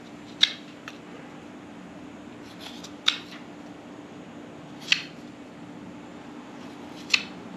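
A knife cutting facets into the end of a cedar bow-drill spindle: short crisp snicks, four sharp cuts a couple of seconds apart with a few fainter ones between.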